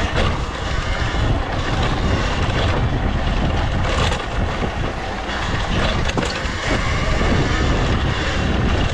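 Wind buffeting the microphone and tyres rumbling over a dirt path while riding an electric dirt bike, a steady loud noise with no engine note.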